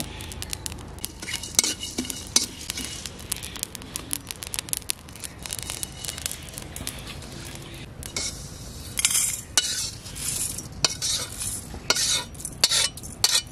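Metal spatula stirring and scraping whole spices (cardamom, cinnamon, cumin seeds, bay leaves) as they dry-roast in an empty iron karahi: many small clicks and scrapes of metal on iron. The scraping grows louder and denser in the last few seconds as the roasted spices are tipped and scraped out of the karahi.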